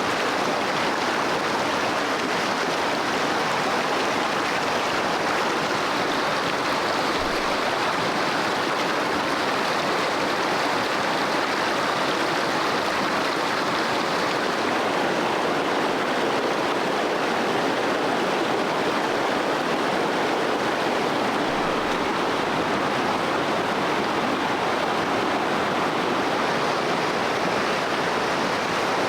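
Stream water running steadily over rocks, an even rushing that does not change.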